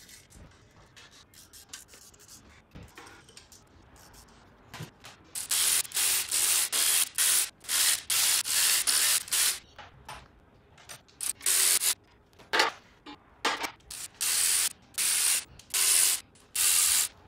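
A ratchet wrench turning out bolts on a 6-litre L98 LS V8 block, in a rapid series of short ratcheting bursts from about five seconds in. Before that, only faint clicks of tool handling.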